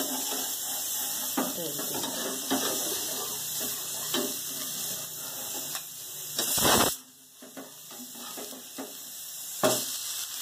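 Dosa batter sizzling in sesame oil on a hot black tawa, a steady hiss. About two-thirds of the way through comes a short loud scrape of the metal spatula as the dosa is turned, after which the sizzle is quieter, and a smaller knock of the spatula follows near the end.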